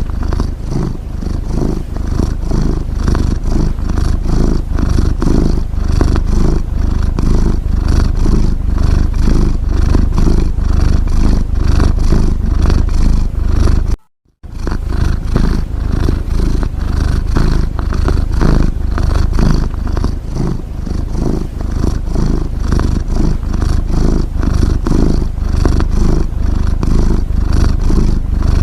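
A domestic cat's steady, rough, low rumble made of rapid pulses, which breaks off for a moment about halfway through.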